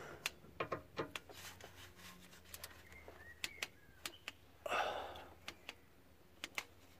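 Faint, irregular metallic clicks of a ratchet torque wrench working the last water-pump bolt, with a brief rustle about five seconds in.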